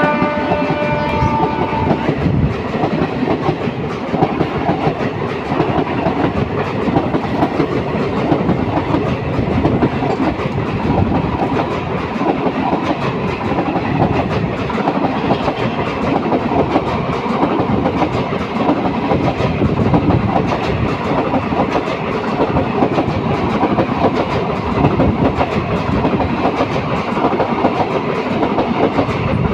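Indian Railways ICF passenger coaches passing close by at speed: a steady loud rumble and rattle of wheels with rapid clickety-clack over the rail joints. The locomotive's horn is still sounding for the first second and a half, then cuts off.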